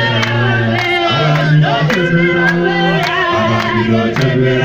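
Church congregation singing together in long held notes, with a steady beat of sharp strikes running under the voices.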